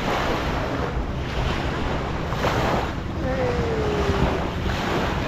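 Steady rushing of wind on the microphone with a low rumble, over water washing at the shore. A brief, faint falling whistle-like tone sounds about three seconds in.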